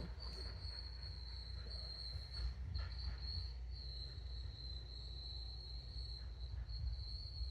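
Robot vacuum cleaner running, a steady high-pitched whine over a low hum.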